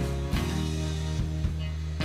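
Background music with guitar and a drum beat.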